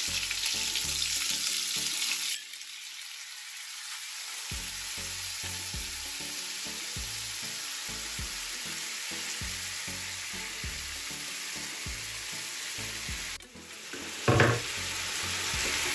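Salmon fillets frying in hot oil in a non-stick wok, a steady sizzle. The sizzle drops suddenly about two seconds in and surges briefly louder near the end.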